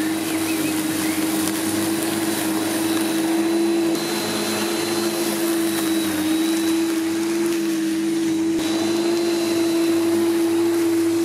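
Parkside PRM 1300 A1 corded electric lawnmower, its 1300 W motor and blade running steadily while cutting short grass at a 40 mm height, an even motor hum.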